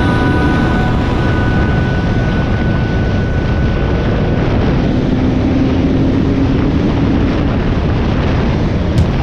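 2019 KTM 300 XC's two-stroke single-cylinder engine running steadily under load as the dirt bike rides fast along a dirt track, heard from an onboard camera with wind and tyre noise. A sharp knock comes near the end.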